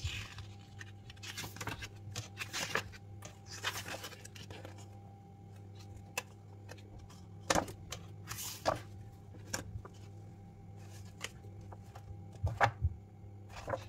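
Pages of a large hardcover art book being turned one after another, the paper swishing and rustling several times at irregular intervals, over a steady low hum.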